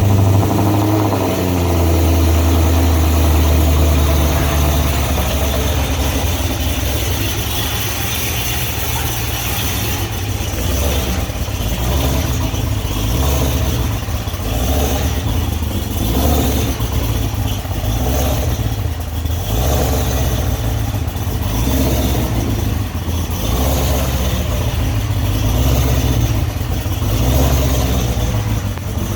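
Cadillac CTS-V V8 engine on a cold start: it catches right at the start and runs at a loud, raised cold idle. The idle eases down a little after about four seconds and then holds steady with mild swells.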